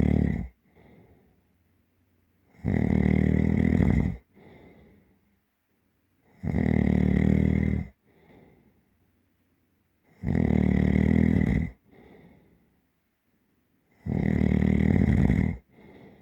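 Deep, heavy snoring: a loud, rattling snore about every four seconds, each about a second and a half long and followed by a faint breath out.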